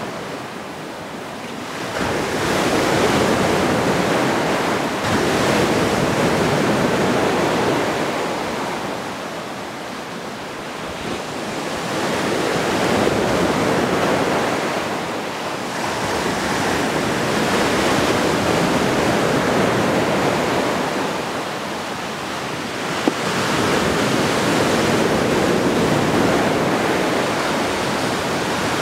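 Sea surf below the cliff, a steady rush that swells and eases every four to six seconds, with wind.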